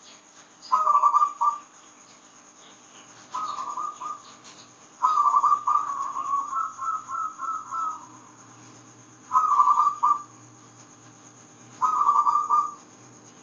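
Zebra dove (perkutut) cooing: five phrases of rapid, pulsed coo notes, the middle phrase longer at about three seconds.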